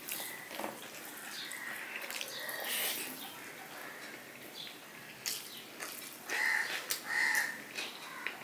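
Close-up eating sounds of rice eaten by hand from a steel plate: chewing, lip smacks and fingers mixing rice against the plate. Two loud bird calls come near the end, less than a second apart.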